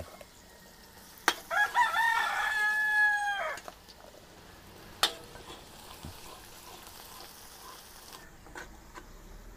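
A rooster crows once, starting about a second and a half in and lasting about two seconds. Under it, garlic fries faintly in oil in a wok. Two sharp metal knocks come at about one second and five seconds in.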